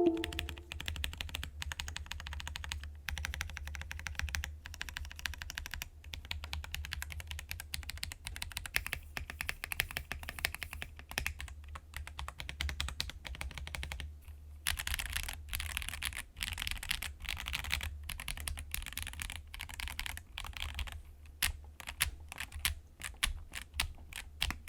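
Typing on a KBD67 Lite custom mechanical keyboard with Drop Holy Panda tactile switches on a polycarbonate plate: a dense, continuous run of key clacks, busiest in the middle, then slower separate keystrokes near the end.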